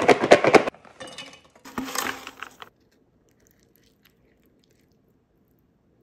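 Oiled tortilla chips shaken inside a lidded plastic food container, rattling and clattering in two loud bursts. The sound stops short about halfway through.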